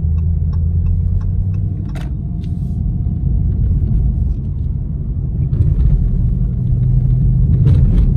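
A 2018 Dodge Charger R/T's 5.7-litre Hemi V8 running under way, a low engine and road rumble heard from inside the cabin. The engine note rises a little in pitch after about five seconds.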